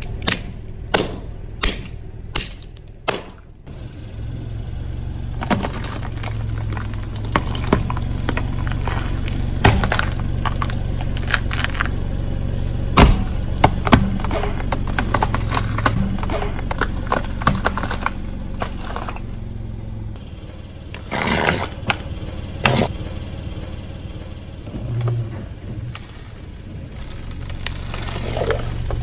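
A car's engine running slowly while its tyre rolls over and crushes brittle objects: a string of sharp cracks and snaps over a low engine hum, the loudest snaps about halfway through.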